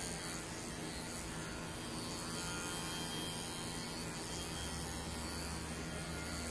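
A steady low electrical hum with a faint buzz, and a deeper rumble joining about four seconds in.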